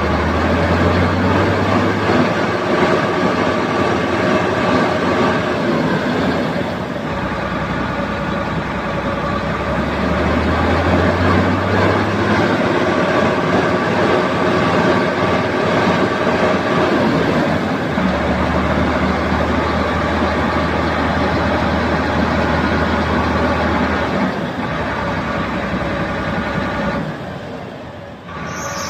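Mobile crane's diesel engine running at raised revs, with a steady mechanical note whose low pitch shifts every few seconds. The sound eases and dips briefly near the end.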